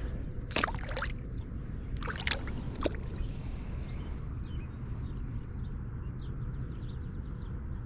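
Water sloshing and splashing a few times in the first three seconds at the lake's edge, over a steady low rumble.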